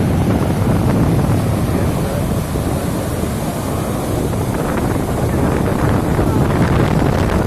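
Steady loud rush of a waterfall in flood, with wind buffeting the microphone.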